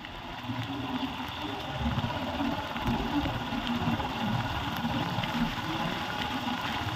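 Motorcycle engine running while the bike rides over a wet, muddy dirt road, with a steady low rumble and road noise.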